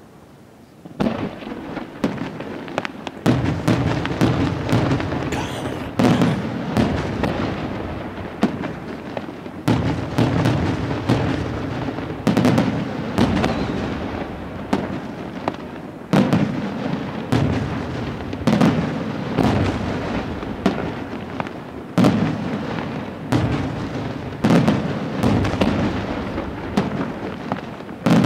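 Aerial firework shells bursting in quick succession: a sharp boom every two to three seconds over continuous crackling from the stars. It starts about a second in, after a brief lull.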